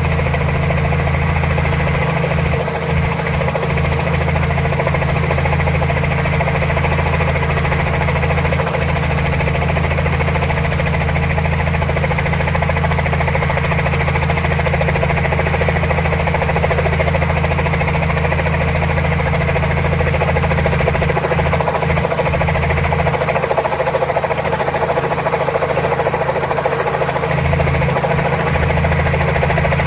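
Small two-bladed piston helicopter idling on the ground, its engine and main rotor running steadily.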